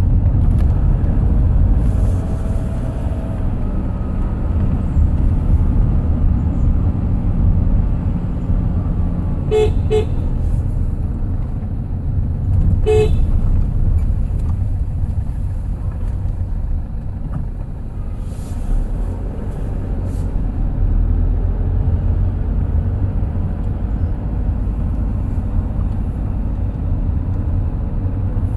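Steady low rumble of a road vehicle on the move, with a vehicle horn tooted twice in quick succession about ten seconds in and once more about three seconds later.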